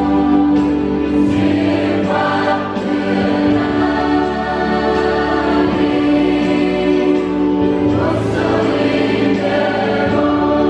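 Choir of girls and young women singing a hymn together, holding long notes in harmony.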